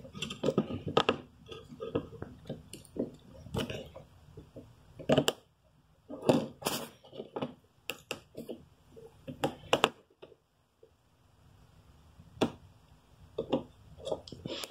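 Irregular small clicks, taps and scrapes of fingers handling a disassembled Nokia 6600 slide phone's screen and plastic and metal parts on a wooden table, with a short lull about ten seconds in.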